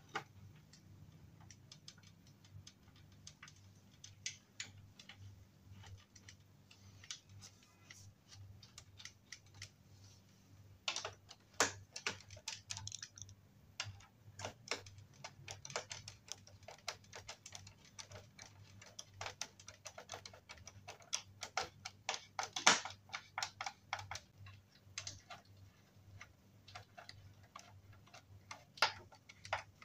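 Wood screws being turned by hand with a screwdriver into a wooden cot frame: irregular light clicks and ticks as the screwdriver works the screws, with one louder knock about two-thirds of the way through.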